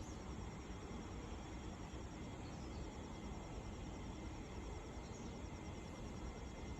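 Steady low background rumble with a faint, rapid, high-pitched pulsing chirp, like a calling insect.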